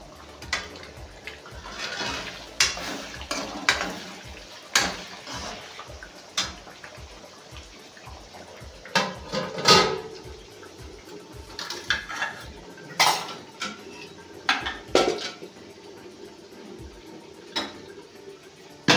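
Steel spoon scraping and clanking in a steel kadhai as meat is stirred, with steel pot lids clattering as they are lifted and set down: an irregular string of sharp metallic knocks, the loudest about ten seconds in.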